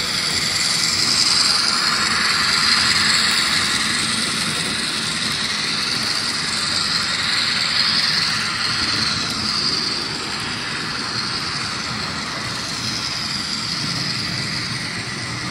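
N-scale model freight train running on layout track: a steady whirring of a small locomotive motor and wheels on rail, with a high whine that wavers slightly in pitch.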